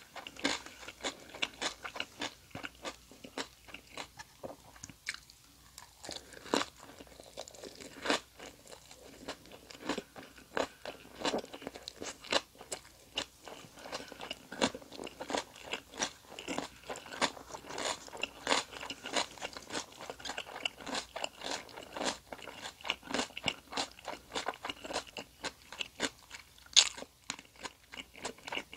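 Close-miked chewing of Vietnamese fresh spring rolls (gỏi cuốn) and raw vegetables: a steady run of irregular crisp crunches, several a second, with one sharp, loud crunch near the end.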